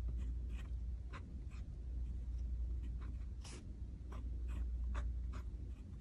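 Fine-nibbed Esterbrook Estie fountain pen writing on notebook paper: faint, irregular scratches of the nib strokes, over a low steady hum.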